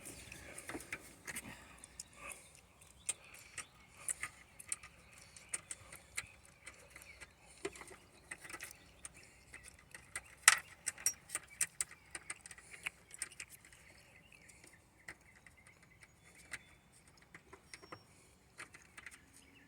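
Small metal parts clicking and clinking as a washer and nut are fitted by hand onto a keyed ignition switch, with its keys jangling; irregular light taps throughout, the sharpest about ten seconds in.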